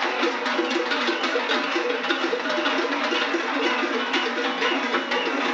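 Many handheld cowbells clanging at once, a dense, uneven stream of strikes that runs without pause, among a marching crowd.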